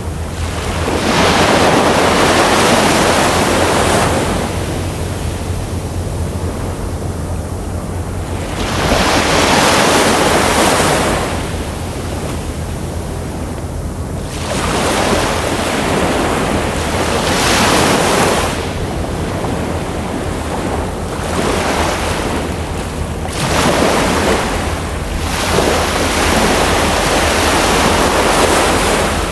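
Ocean waves breaking and washing up a shore, swelling and ebbing in surges every several seconds, over a steady low rumble.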